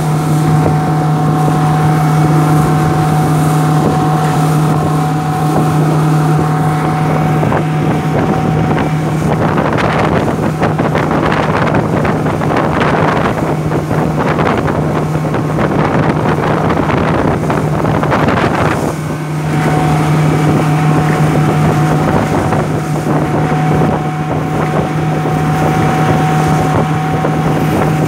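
Motorboat engine running steadily at speed, a constant droning hum, with wind buffeting the microphone and water rushing past the hull. From about ten to nineteen seconds in, the rush of wind and spray grows louder and partly covers the engine.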